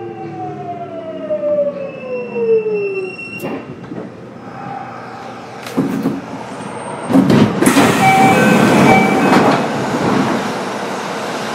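Kintetsu 1031 series train braking into a station: the Hitachi GTO-VVVF inverter's whine falls steadily in pitch and stops about three seconds in. The brake and wheel noise then takes over and is loudest from about seven to nine and a half seconds in, as the train comes to a stop.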